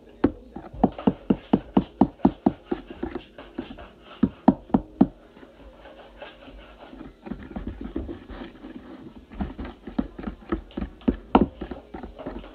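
A fork beating pancake batter in a plastic bowl, knocking against the sides in quick even strokes, about four a second. It eases off midway and picks up again near the end.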